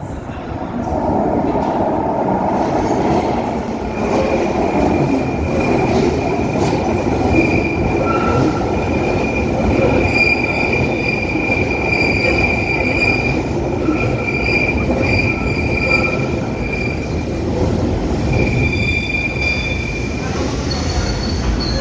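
London Underground 1972 Stock train running along the track in a tube tunnel and platform, with a steady rumble and a high-pitched wheel squeal that comes and goes over most of its run.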